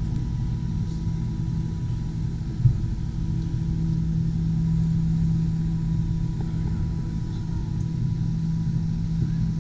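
Steady low mechanical hum inside an enclosed Ferris wheel gondola, with a thin high whine above it and a single knock a little over two and a half seconds in.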